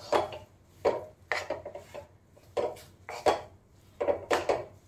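Stainless-steel spatula scraping and stirring gram flour roasting in ghee in a steel kadhai, in a series of short, uneven strokes about two a second.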